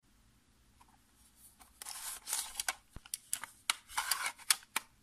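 A plastic Casio scientific calculator handled on a wooden desk: short scraping rubs and a run of sharp plastic clicks and taps as it is picked up and turned over, starting about two seconds in.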